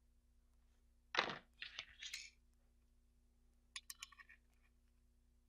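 A digital caliper and a steel powder bar handled on a tabletop: a short knock just over a second in, then a few quick scrapes. Near four seconds in comes a quick cluster of small clicks as the caliper jaws are closed on the bar.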